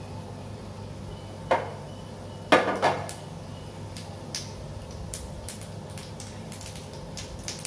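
Mustard seeds and urad dal in hot oil in a nonstick frying pan, tempering, with scattered sharp pops as the mustard seeds begin to splutter. A louder burst of crackling comes about one and a half seconds in and again at about two and a half seconds, then single pops every second or so.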